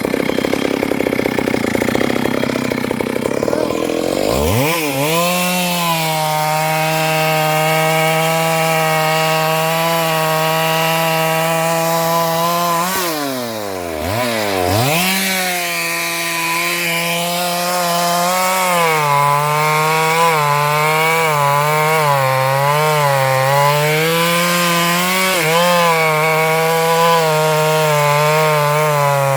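Stihl MS 382 two-stroke chainsaw cutting through a large sengon trunk. It opens with a rougher, noisier stretch, then a steady high engine note under load sets in about four seconds in. Around halfway the engine drops off almost to idle and revs back up, and later its pitch dips and recovers again and again as the chain bites into the wood.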